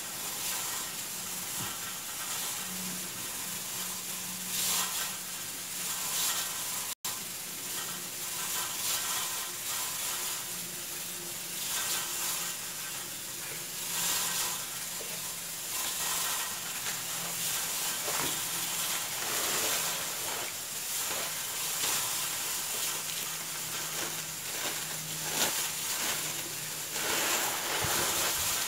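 Steady sizzling hiss, like food frying in a pan, with occasional soft taps and rustles from hands rolling filled pastry sheets on a plate.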